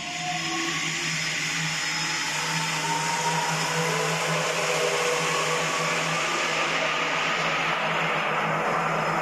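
Homogenizer mixing tank running: the frame agitator churning liquid over a steady motor hum, with a faint whine slowly rising in pitch.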